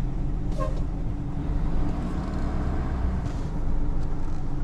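Truck engine running steadily at low speed while the truck reverses slowly.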